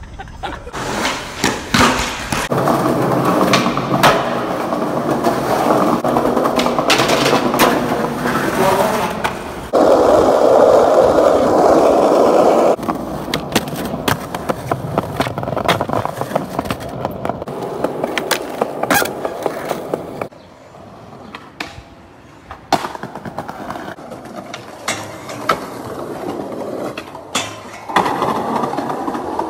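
Skateboard wheels rolling over pavement and stone, broken by sharp clacks of the board popping, landing and striking ledges. The rolling gets louder for a few seconds near the middle and drops away for a short spell later on.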